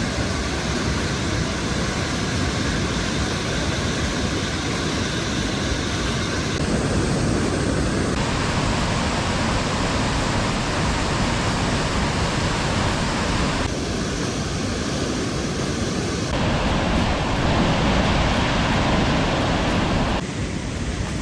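Rushing water of a creek running high over rocky cascades: a steady, even noise with no pitch. Its tone shifts abruptly several times.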